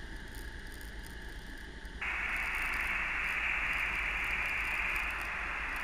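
Steady hiss over a light aircraft's headset intercom and radio audio, with a low hum underneath; the hiss steps up clearly louder about two seconds in and holds.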